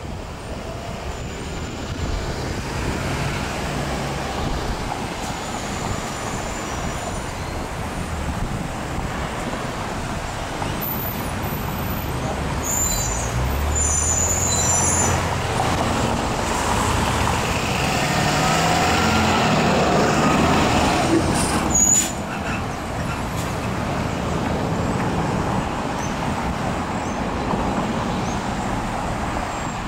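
Road traffic at a busy intersection: cars and heavier vehicles running and pulling through, swelling louder in the middle. There are a few brief high-pitched squeals about a third of the way in and a sharp knock about two-thirds through.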